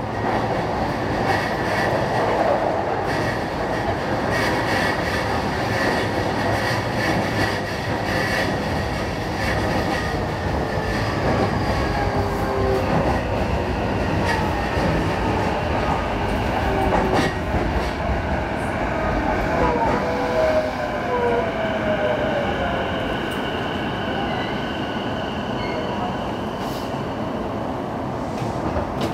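Running sound of a JR East E233 series 5000-subseries electric train: a steady rumble of wheels on rail with scattered rail-joint clicks. From about twelve seconds in, the motor whine falls in pitch as the train brakes toward its station stop, with thin high tones over it in the later part.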